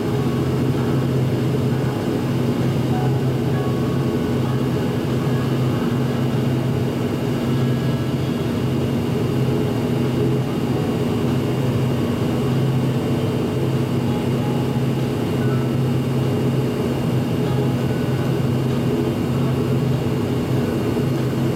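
Steady, even low hum of aircraft engines heard from inside an airliner cabin.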